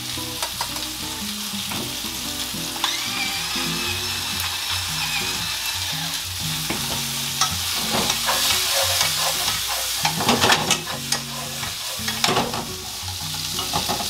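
Onion, eggplant and ham sizzling in olive oil in a frying pan while being stirred and turned with wooden chopsticks. The chopsticks scrape and click against the pan, more often from about seven seconds in.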